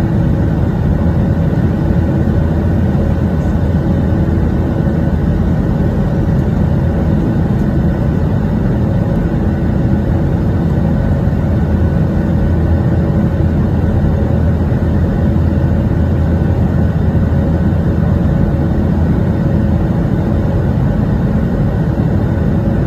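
Jet airliner cabin noise from a window seat over the wing during the climb after takeoff: a steady, loud rumble of the engines and airflow with a few faint steady hum tones, unchanging throughout.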